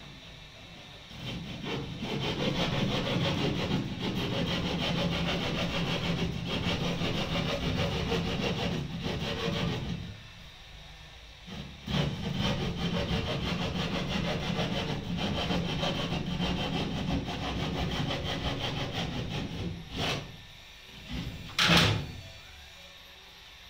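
Hand saw cutting through a gypsum board ceiling panel overhead, in steady back-and-forth strokes, with a break of about two seconds midway. Near the end come two short, sharp cracks, the second the loudest.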